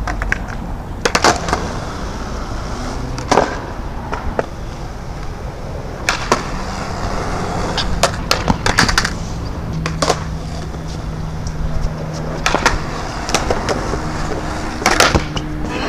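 Skateboard wheels rolling on concrete, broken by repeated sharp clacks of the board popping, hitting the ledge and landing, about nine in all.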